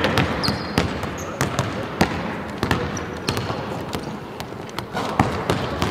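Basketballs bouncing on a hardwood arena court: a string of irregularly spaced thuds from more than one ball.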